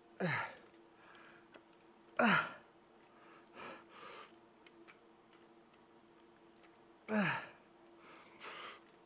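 A Samoyed's 'woo-woo' vocalizing: short yowling calls that each slide down in pitch. Three loud ones come near the start, about two seconds in and about seven seconds in, with softer ones between.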